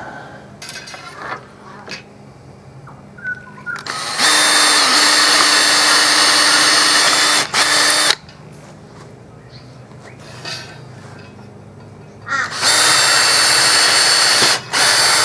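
Cordless drill boring holes through the wooden arms of a frame saw. There are two steady runs of a few seconds each: the first starts about four seconds in, the second near the end.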